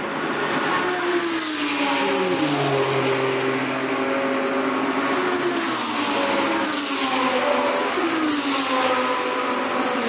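Several GT3 race cars accelerating hard away down a straight, engines overlapping. Each one climbs in pitch and drops at every upshift, a few times over.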